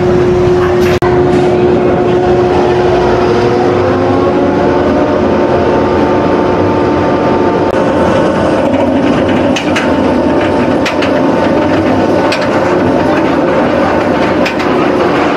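Bolliger & Mabillard steel roller coaster train running on its track, a steady rumble with tones that rise in pitch a few seconds in, and a few sharp clicks later.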